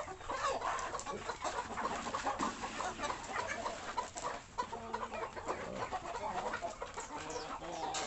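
A flock of chickens clucking busily at feeding time, with many short calls overlapping.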